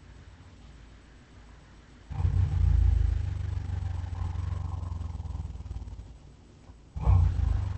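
Deep rumbling growl of a beast sound effect, a long one starting about two seconds in and slowly fading, then a shorter second growl near the end.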